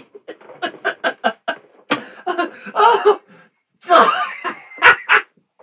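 A man laughing at his own joke: a quick run of short chuckles, then several louder bursts of laughter.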